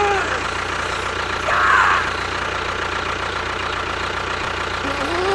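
Engine idling steadily with a fast, even low pulse, like a tractor engine. Short voice-like calls rise and fall near the start and again near the end.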